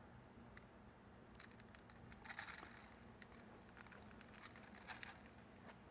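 Dry rub shaken from a plastic shaker bottle, faint pattering and rattling onto raw chicken in a foil pan, with a louder burst of shaking about two and a half seconds in.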